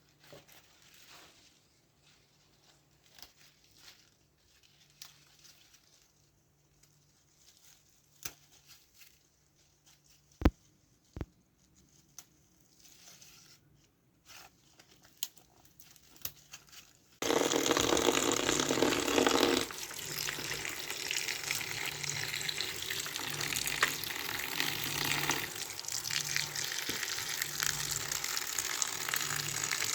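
Quiet handling sounds with a few small clicks and two sharp clicks, then about seventeen seconds in running water starts abruptly, loudest for the first couple of seconds and then running steadily.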